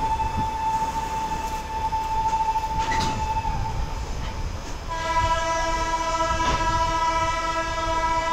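Train horns at a railway station: one steady high horn note held for the first three and a half seconds, then after a short gap a lower, fuller horn note held to the end, over the low rumble of a train rolling slowly along the platform.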